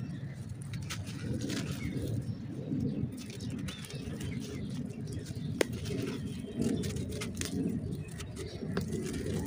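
Dry, chalky clay chunks being crumbled and squeezed by hand in a basin: gritty crunching and crackling with many small crisp snaps, one sharper snap a little past the middle, over a continuous low background sound.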